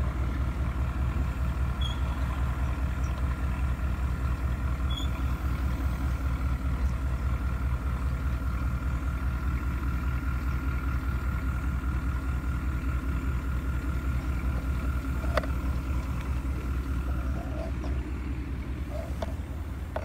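Radio-controlled model truck running steadily, a low engine-like drone with a thin steady whine above it that eases off near the end.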